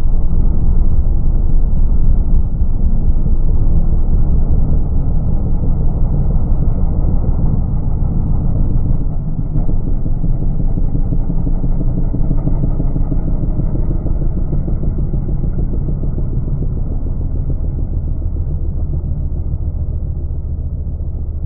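Ford Mustang GT's 5.0 V8 engine and exhaust running loud and deep, growing gradually quieter with a short dip about nine seconds in.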